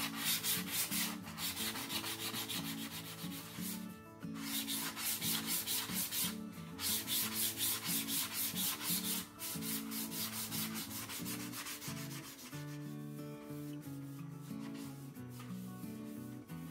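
Wet 320-grit sandpaper rubbing in quick back-and-forth strokes over the primed body tube of a model rocket, smoothing the primer. The strokes break off briefly about four seconds in and again near nine seconds, and turn to softer rubbing after about twelve seconds.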